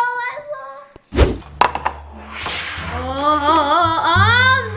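A loud, deep thunk about a second in and a smaller knock just after, then background music with a wavering melodic line over a steady low hum.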